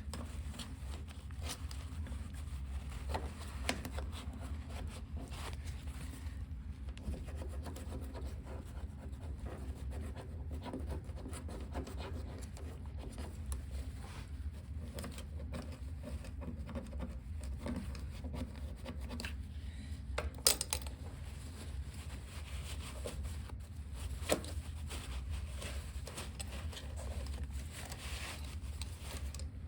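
Hand wiping and scrubbing, paper and brush rubbing over a dirty car body, with scattered small clicks and two sharper knocks past the middle, over a steady low hum.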